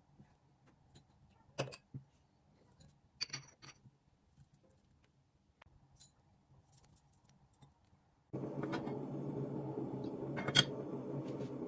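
A few light clinks and knocks of kitchen utensils and dishes being handled. About eight seconds in, a steady mechanical drone with a thin high whine starts suddenly, and one sharper clink sounds over it.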